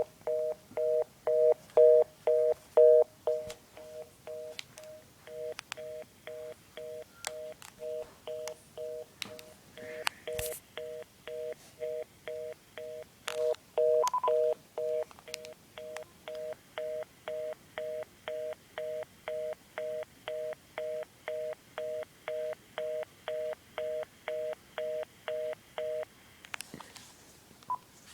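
Telephone fast busy (reorder) signal: a low two-tone beep pulsing on and off about twice a second, the tone a call gets when it cannot go through. Faint clicks sound over it, and the beeping stops a couple of seconds before the end.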